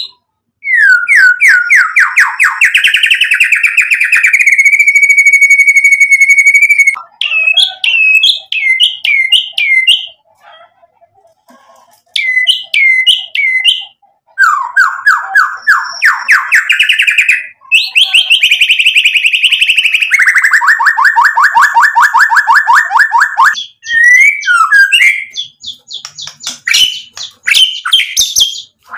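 White-rumped shama (murai batu) singing loudly in long, varied phrases: fast trills, runs of rapid repeated notes and a held whistle, broken by a short pause about a third of the way in.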